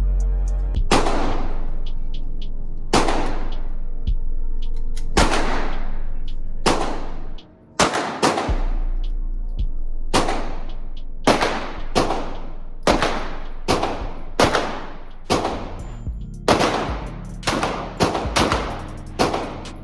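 Gunshots fired one at a time, each crack trailing off in a long decay. About twenty shots, spaced a second or two apart at first, coming faster, roughly one every 0.7 s, in the second half.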